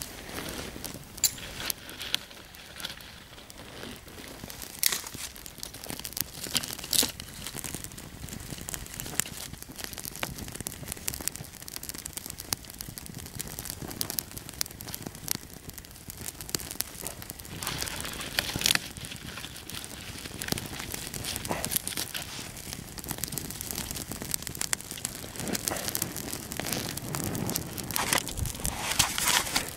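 Small fire of dry wood shavings and thin twigs crackling as it catches, with irregular sharp pops and snaps scattered through it.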